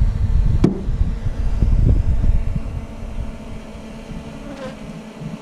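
Honeybees humming steadily around an open hive, under a low rumble on the microphone that fades after about three seconds. One sharp knock about a second in.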